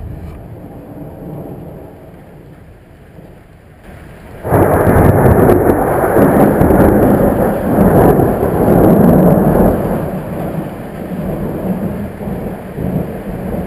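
Thunder with rain falling: a fading rumble, then a sudden loud clap about four and a half seconds in that rolls on for about five seconds before easing into a lower rumble, over a steady hiss of rain.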